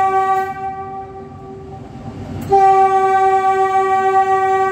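Metro train's horn held in one long steady note inside the tunnel, over the low running noise of the train. The note weakens about half a second in and sounds again at full strength about two and a half seconds in.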